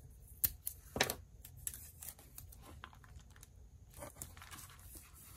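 Washi tape being pulled off its roll, torn and pressed down onto paper: faint crackling and light tearing with scattered small clicks, the sharpest about half a second, a second and four seconds in.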